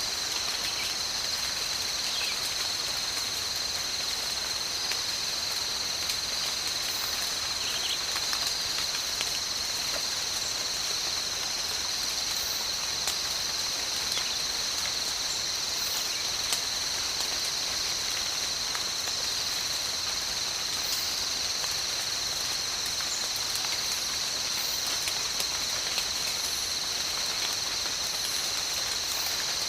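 Steady tropical rain falling on foliage, with scattered individual drops ticking, over a continuous high-pitched insect chorus that holds unchanged throughout.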